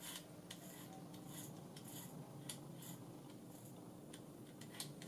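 Faint, irregular small clicks and rubbing from a radio altimeter's tape drive mechanism as it is turned by hand, over a faint steady low hum.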